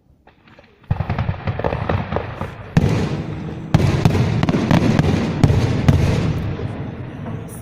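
Fireworks display going off: a dense run of bangs and crackles that starts about a second in, grows louder about three and four seconds in, and eases off near the end.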